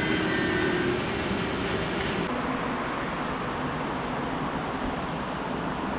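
Metronom double-deck electric train at a platform, a steady electric whine over its running noise that dies away about a second in. After a cut a little after two seconds, a steady background noise of rail and road traffic.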